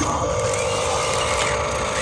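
Electric motors and gearboxes of a Huina 1593 RC excavator whining as it works, a steady whine that drops in pitch just after the start and then holds.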